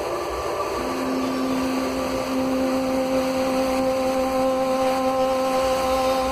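Heavy rain falling steadily on a flooded courtyard, with long held tones of background music over it; a lower note joins about a second in.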